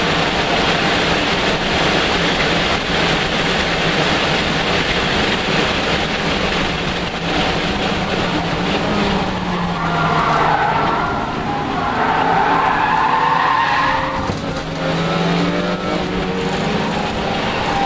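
Inside the cabin of a Lexus IS300 race car: the 3.0-litre inline-six runs hard under load over heavy road and wind noise, its note falling and rising. The tyres squeal for about four seconds midway through.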